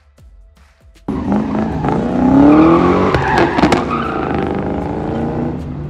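An autocross car's engine revving hard with rising pitch as it slides around the cones, tyres squealing, with a few sharp cracks near the middle. It starts suddenly about a second in, after near silence.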